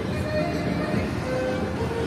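Busy city street din: a dense, steady traffic rumble with music playing over it.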